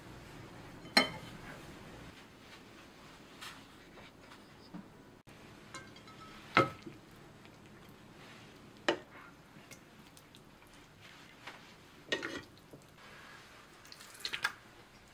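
Kitchen utensils and cookware clinking and knocking against ceramic dishes and a pot: a handful of separate short strikes spread out, with quiet between, the loudest about a second in, near the middle, and a quick cluster near the end.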